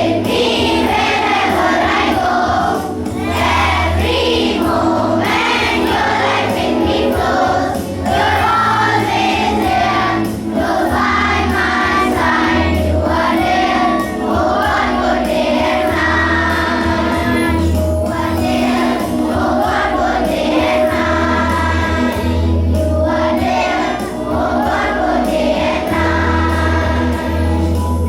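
A group of voices singing a song together in chorus over steady instrumental accompaniment.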